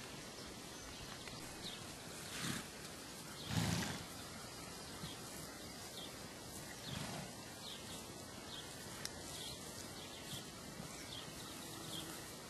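Outdoor paddock ambience: a steady hiss of background noise with a brief louder burst of low rushing noise about three and a half seconds in, and short high chirps repeating through the second half.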